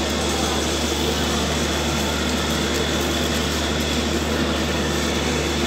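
A steady engine drone that stays level throughout, with no distinct knocks.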